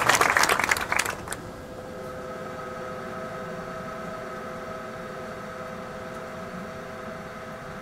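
Audience applause dying away about a second in, followed by a steady hum with a few held tones.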